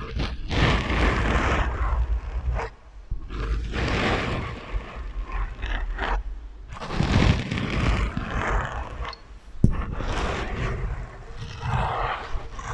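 Objects scraped and rubbed close to the microphone, run through a heavy echo effect: several rough, noisy bursts of a second or two each, with one sharp click about ten seconds in.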